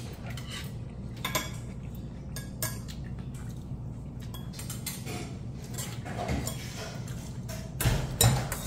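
Metal spoon and chopsticks clinking and scraping against a stainless steel bowl of barley rice, in scattered light clicks with two louder clinks close together near the end, over a steady low hum.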